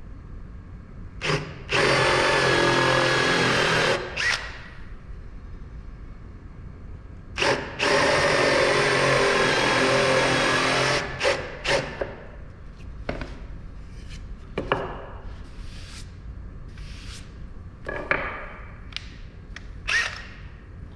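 Power drill boring into a wood board with a Forstner bit, cutting a shallow recess so a lag screw head sits below the surface. It runs in two long stretches of about two and three seconds, with short trigger blips around them, then gives way to a few sharp clicks and knocks.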